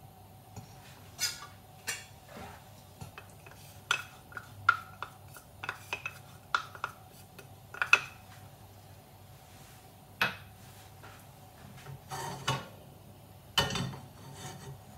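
Irregular clinks and knocks of kitchenware as a small bowl and a non-stick frying pan are handled on a gas hob, some strikes ringing briefly, over a faint steady hum.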